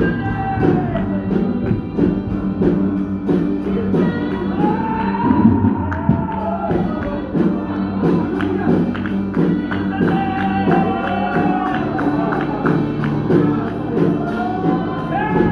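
Live gospel music: voices singing over instruments holding steady notes, with a tambourine keeping an even beat.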